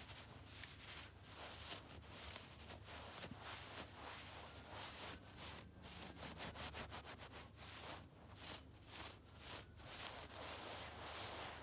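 Long fingernails scratching and rubbing through the pile of a fluffy shag rug: quiet rustling strokes, quickening into a run of fast strokes about halfway through.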